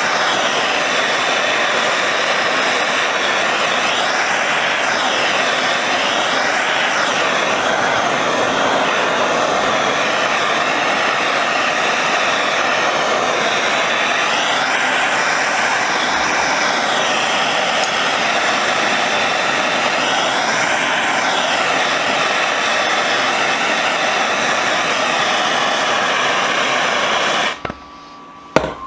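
Gas torch flame burning steadily with a loud, even roar as metal vise parts are heated before quenching in oil. It cuts off abruptly about a second before the end.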